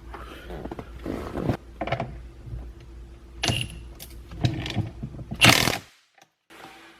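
A wrench tightening down the steering wheel's retaining nut: an irregular run of clicks and knocks with short whirring stretches, and a loud rasping burst about five and a half seconds in, after which the sound cuts off abruptly.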